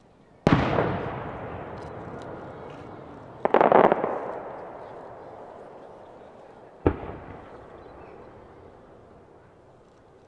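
Aerial firework shells bursting: a sharp bang about half a second in, a short crackling cluster of pops around three and a half seconds, and another bang near the end, each followed by a long fading rumble.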